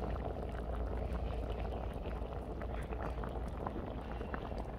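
Tteokbokki sauce boiling in a wide round pan, a steady bubbling with many small pops crackling through it.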